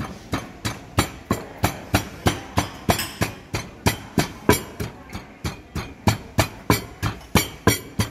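Wooden pestle pounding papaya salad in a large wooden mortar: steady, even thuds at about three a second.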